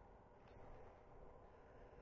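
Near silence: a faint steady hiss, with one soft tick about half a second in.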